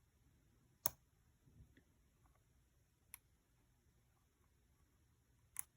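Lock pick clicking in a 12-bar-wafer American Locker Company lock: three sharp clicks a couple of seconds apart, the first the loudest, with a few faint ticks between, as the pick slips off the wafers while lifting.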